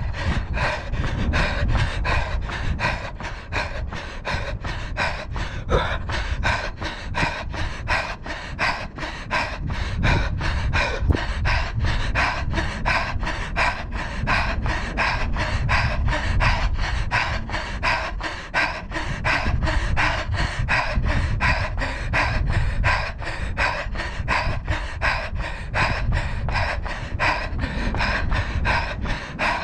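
A runner's heavy, rhythmic panting during a hard tempo-pace run, with regular footfalls on asphalt at about three steps a second.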